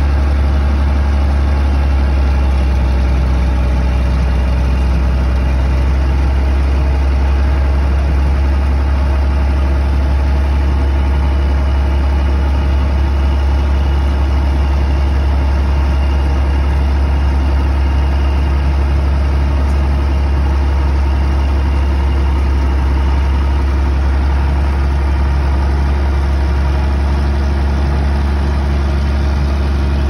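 New Holland 8070 combine harvester's diesel engine running steadily close by, at an even speed with no revving.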